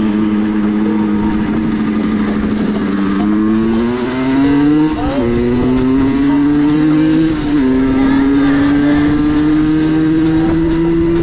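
Geared 50cc two-stroke moped engine under way, its pitch steady at first, then climbing through the revs and dropping sharply at two gear changes, about five and seven and a half seconds in, before climbing slowly again.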